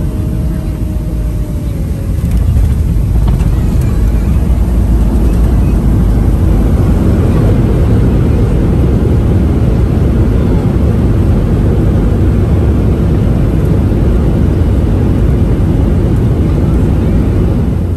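Steady low rumble of a moving vehicle, engine and road noise heard from inside, getting louder about two seconds in.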